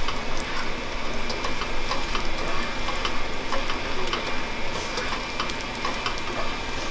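Chopped garlic sizzling in hot cooking oil in a pot as it is stirred, a steady hiss dotted with small crackling pops.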